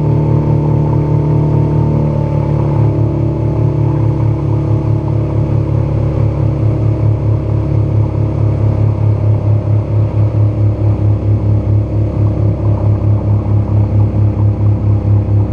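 Outboard motor running steadily at planing speed on a small aluminum fishing boat, with water rushing along the hull. A regular low throb of about four beats a second grows stronger in the second half.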